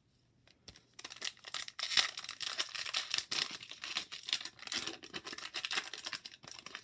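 Foil wrapper of a 2017-18 Upper Deck Series 2 hockey card pack crinkling and tearing as it is ripped open by hand. The dense crackle starts about a second in and eases off near the end.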